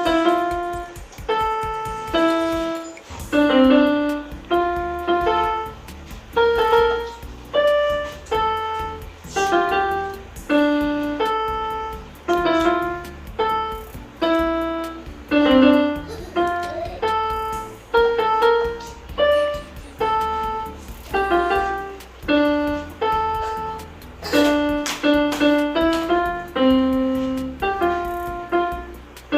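Electronic keyboard with a piano voice playing a steady, unbroken run of melody notes.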